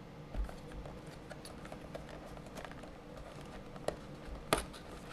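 Light scattered clicks and crinkles of a cardboard trading-card box and its plastic wrap being handled, with two sharper clicks near the end.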